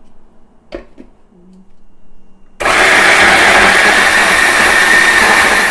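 Electric food processor (mini chopper) switching on abruptly about halfway through and running steadily at full speed, grinding chickpeas, roasted red pepper, tahini and oil into hummus. A light click comes about a second in.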